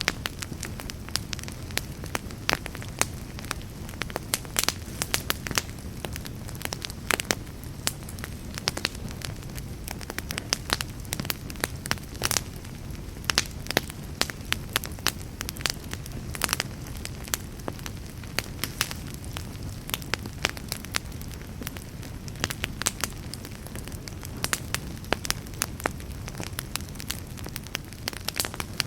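Fire crackling in a fireplace: frequent, irregular sharp pops and snaps over a low, steady rumble of burning.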